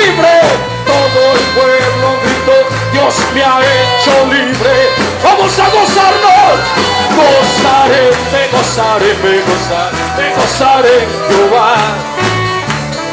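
Band music with a steady drum beat and a repeating bass line under a wavering lead melody.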